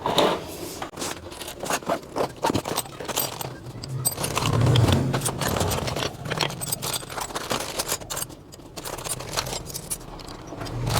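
Hand tools clinking and scraping against each other, metal on metal, as spanners and pliers are picked out and handled, in many short irregular clicks.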